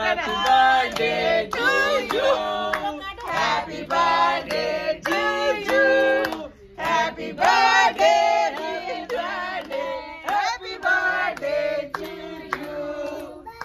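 A group of voices singing a song together in held, melodic phrases.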